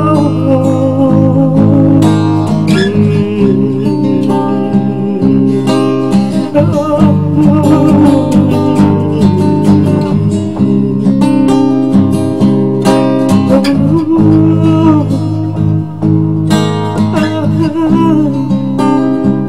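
Acoustic guitar playing an instrumental passage of a gentle song, with sustained chords and picked notes ringing over them.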